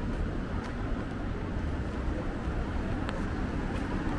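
Street ambience: a steady low rumble of passing traffic, with a few faint ticks.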